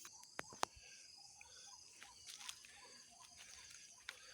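Quiet outdoor ambience: a steady high-pitched insect chorus with many soft short chirps, and two sharp clicks about half a second in.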